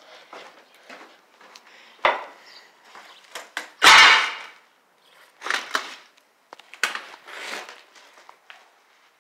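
Scattered knocks, scrapes and rustles of someone moving through a room cluttered with boards and debris. There is a sharp knock about two seconds in and a louder scrape or crunch lasting about half a second about four seconds in.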